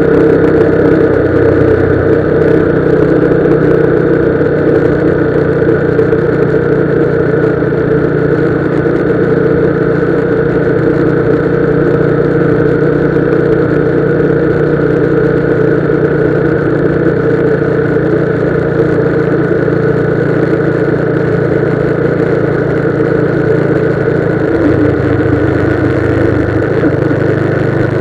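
Motorcycle engine running steadily while riding, with road noise; its note drops near the end.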